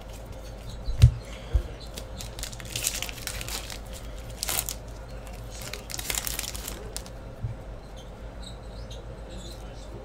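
Foil wrapper of a hockey card pack being torn open and crinkled by hand, in a few crackly rips. Two short low thumps come about a second in, the first the loudest sound.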